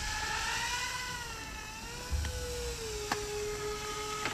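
Electric motors and propellers of a dual-rotor RC bi-copter humming in flight, the pitch slowly wavering up and down. Low rumbles of wind on the microphone come about two seconds in and again near the end.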